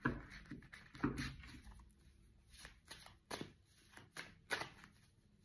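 Tarot cards being handled and drawn from the deck: a faint series of short flicks and taps at irregular intervals.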